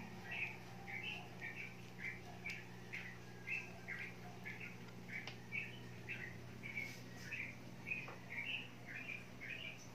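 A bird chirping over and over, about two short high chirps a second, over a steady low hum.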